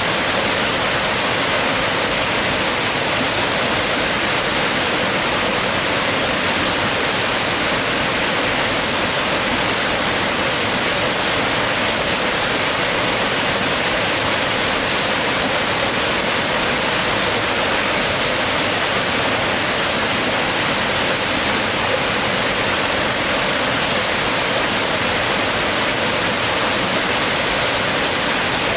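Steady rush of water running over rocks in a small stream or cascade, loud and unbroken.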